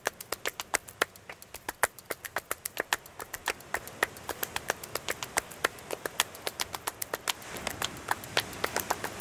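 A quick, irregular run of sharp clicks, several a second, over a soft hiss that swells near the end.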